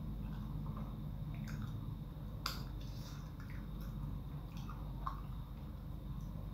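Wet chewing and lip-smacking of a person eating sauce-coated fried chicken, with small sticky squelches as fingers pull the meat apart and one sharper click about two and a half seconds in, over a steady low hum.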